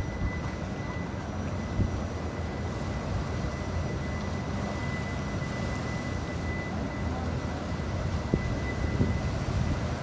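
Steady low rumble of the car ferry Oshima's engines, with a thin steady high tone above it and a few soft knocks.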